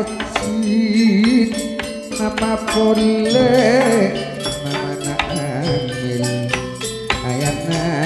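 Live gamelan music: struck bronze metallophones ringing in a dense, steady pattern, with a voice singing a wavering, ornamented melody over them.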